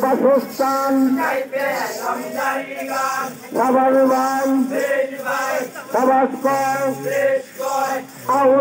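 Male voices singing a Bengali jari song in a chanting style, in short phrases with brief pauses between them.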